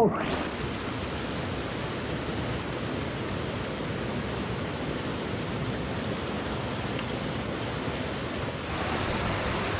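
Creek water rushing over rocks, a steady hiss of flowing water; about nine seconds in it gets louder and brighter.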